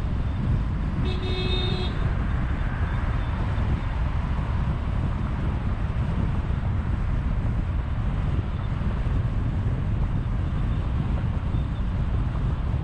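A car horn sounds once, a short toot of under a second about a second in, over the steady low road and wind rumble of a car driving at about 60 km/h.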